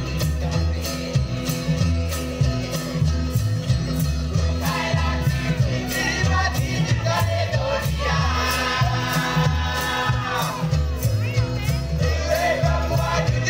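Loud dance music with a steady beat and singing, accompanying a Vanuatu island group dance.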